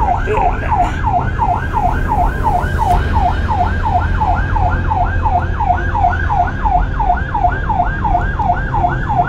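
Electronic emergency siren in fast yelp mode, wailing up and down about three to four times a second, over a steady low rumble from a moving vehicle.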